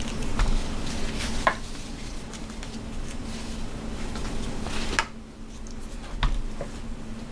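Handling noise from an AR-15 rifle and its nylon sling being moved about on a bench: scattered light clicks and knocks, with a sharper click about five seconds in, over a faint steady hum.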